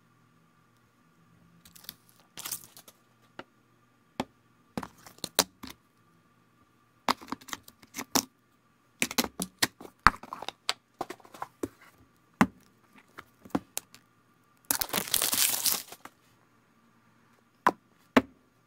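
iPhones and their cardboard boxes being handled on a table: a scattered run of sharp clicks and taps as phones and box parts are picked up and set down. About fifteen seconds in comes a rustling scrape lasting about a second.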